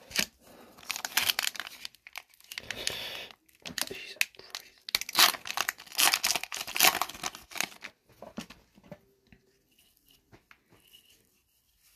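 Foil wrapper of an Upper Deck hockey card pack being torn open and crinkled by hand: a run of crackly tearing bursts for about eight seconds, then only faint rustling.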